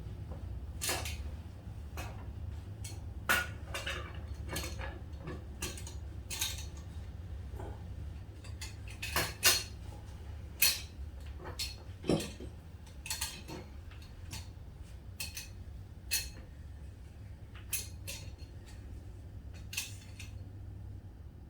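Metal hand tools clinking and knocking against a motorcycle fork tube's cap as it is worked loose with the fork spring still under load, in irregular sharp clicks over a steady low hum.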